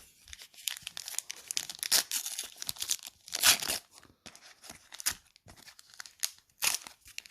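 A Match Attax trading-card pack's foil wrapper being torn open and crinkled by hand: irregular crackling tears, with the loudest rips about two seconds in, at three and a half seconds and near the end.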